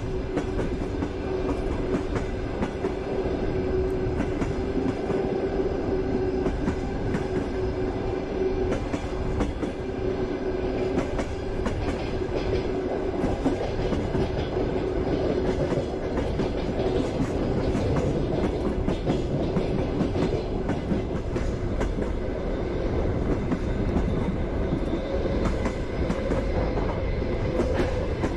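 Passenger train running at speed: a steady rumble of the carriage with the wheels knocking over rail joints, and a steady hum that fades out about halfway through.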